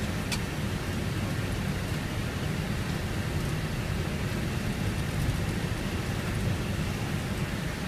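Airbus A319 rolling along the runway, heard from inside the cockpit: a steady roar of engine and airflow noise over a low rumble from the wheels on the runway.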